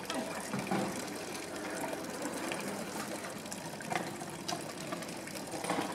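Thin stream of water from a stone street fountain's spout splashing steadily into the basin below.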